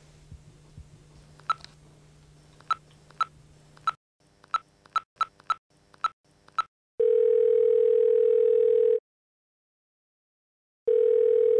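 Cordless phone keypad beeping as a number is dialled, about ten short beeps at irregular intervals. Then the ringing tone in the earpiece comes on: a steady tone for about two seconds, a pause, and the tone again, the call ringing through.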